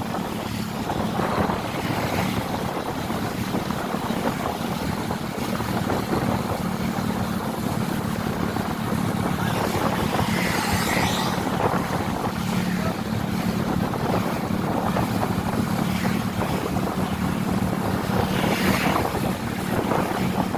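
A bus engine running steadily, with road noise and wind buffeting the microphone.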